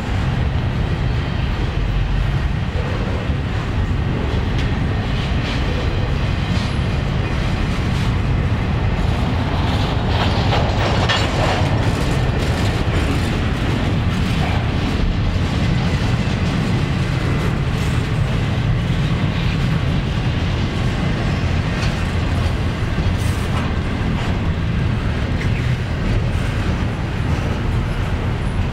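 Double-stack intermodal freight train's container well cars rolling past at speed: a steady rumble and clatter of steel wheels on the rails.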